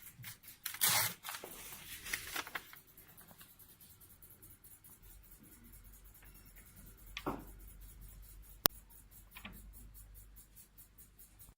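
Hematology analyzer's printer printing out a test result: fast, even mechanical ticking, louder over the first couple of seconds and fainter after, with one sharp click about three-quarters of the way through.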